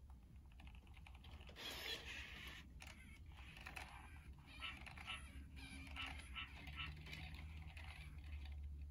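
Faint whirring and creaking of a Sony Aibo ERS-1000 robot dog's joint motors as it moves its leg, repeating a paw motion it has just been taught, with a run of short clicks through the middle.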